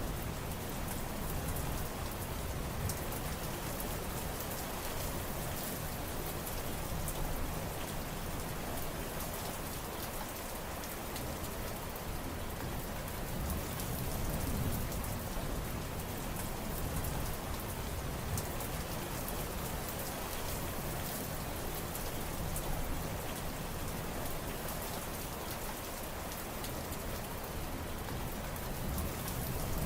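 Steady rain falling on surfaces: an even hiss with many small drop ticks throughout.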